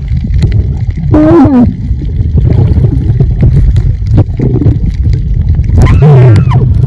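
Loud low underwater rumble of water moving around a snorkeler's camera. A woman's excited scream cuts through it briefly about a second in and again, longer, near the end.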